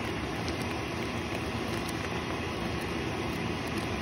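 Pot of fish curry simmering on the stove: a steady hiss and low rumble with a few faint pops.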